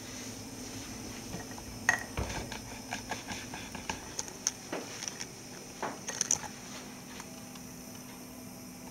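Scattered light clicks and knocks from a handheld camera being picked up and carried, over a steady low hum.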